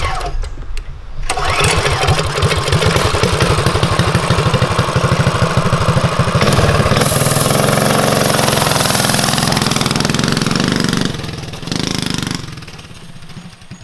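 Coleman CT200U-EX mini bike's 196cc single-cylinder engine with an aftermarket header and performance muffler, starting about a second in and running with a rapid pulse. From about seven seconds it revs higher as the bike pulls away, then fades near the end as it rides off.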